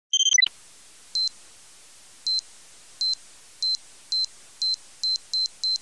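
Intro sound effect of synthesized electronic beeps. A short two-tone chirp and a quick falling blip come first, then a string of short high beeps that come faster and faster.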